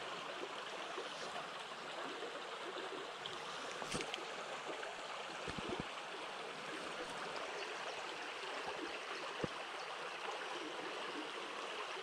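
Small burn flowing over a shallow, stony bed: a steady rush of running water, with a few faint clicks.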